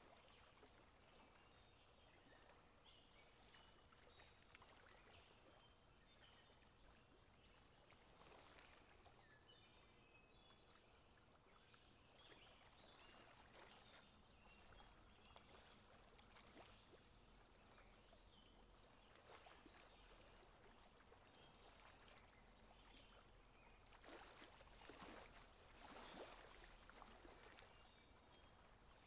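Very faint outdoor nature ambience: a soft wash of running water with scattered short bird chirps, swelling a little near the end.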